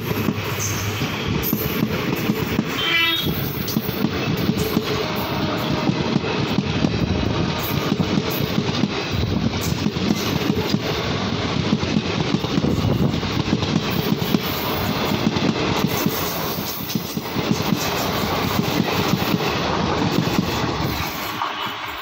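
Indian Railways passenger coaches passing close by at speed: a steady heavy rumble of wheels on rail with rapid clickety-clack, easing off near the end as the last coach goes by and the train moves away.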